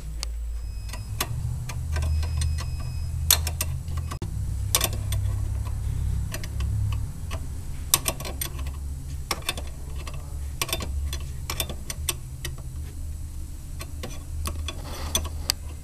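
Irregular metallic clicks and light clinks from a wrench working the brake-line fittings on a master cylinder, over a low steady hum.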